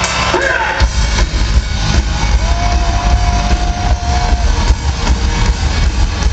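Loud live heavy metal band through a concert PA, picked up by an overloaded phone microphone: a distorted low rumble throughout, with one held high note lasting about two seconds in the middle.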